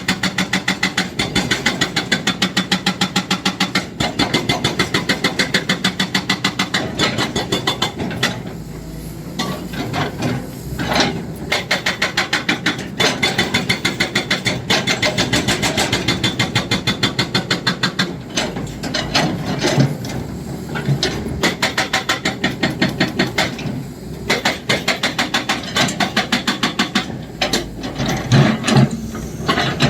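Excavator-mounted hydraulic breaker hammering in a rapid, even string of blows, breaking off briefly twice, with the machine's engine running underneath.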